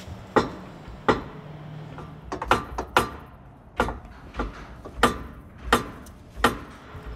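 Repeated sharp metallic clanks, about one every two-thirds of a second, as the steel front sway bar of a Jeep JL Wrangler is shoved and knocked against its mounts and the frame cross member. The bar is jammed against the sway bar motor's retaining bar and won't shift over to clear the cross member.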